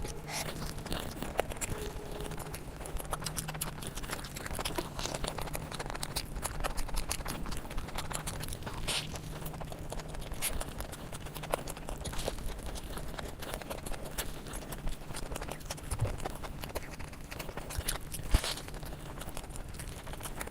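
Close-miked eating: chewing with a dense run of irregular wet mouth clicks and crunches, over a steady low hum.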